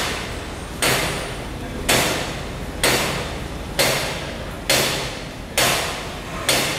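A sharp sound repeating steadily, about once every 0.9 seconds, each one dying away within about half a second, over a low steady rumble.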